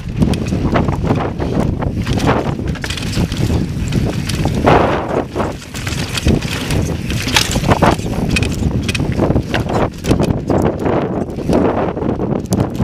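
Mountain bike riding fast over rough slickrock: knobby tyres grinding on rock and grit, with constant clatter and knocks from the bike jolting over ledges and stones, and wind rushing on the microphone.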